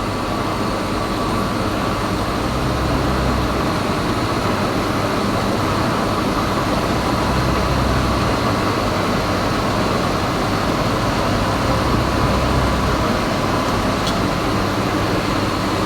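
Metal lathe running steadily: a constant whine over an even mechanical noise.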